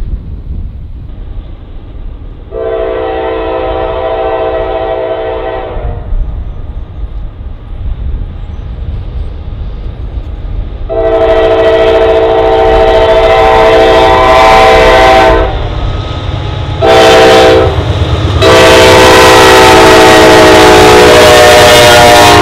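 Norfolk Southern freight diesel locomotive's multi-chime air horn. It sounds one long blast a few seconds in, then a long, a short and a long blast, the loudest near the end as the locomotives pass the grade crossing with a low engine rumble.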